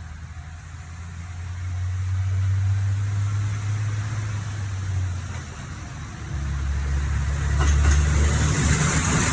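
KiHa 25 series diesel railcar's engine running and growing louder as the train comes closer, its low note stepping down about five seconds in. A rising hiss of the train's running noise joins it over the last couple of seconds as the train reaches the crossing.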